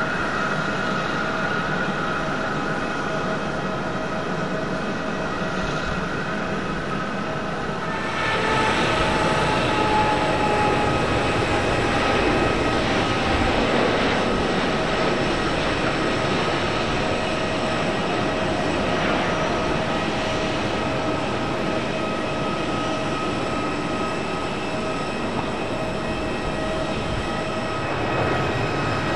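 Airliner jet engines running at high power: a steady roar with high whining tones over it. It gets louder and fuller about eight seconds in.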